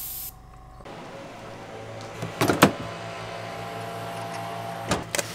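Airbrush spraying with a steady hiss that cuts off just after the start. It gives way to a steady low hum with two loud knocks, one about halfway and one near the end.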